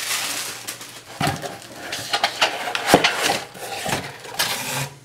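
Cardboard scraping and rubbing with several sharp knocks as a boxed product is slid out of a cardboard shipping carton and handled.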